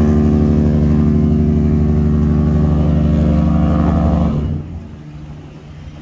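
Cruise ship horn sounding one long, deep, steady blast that stops about four seconds in. It is followed by a much quieter stretch until the next blast begins right at the end.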